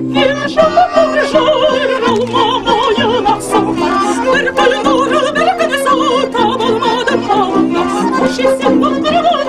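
A woman singing a traditional song with a strong, wavering vibrato, accompanied by an accordion playing sustained chords and bass notes.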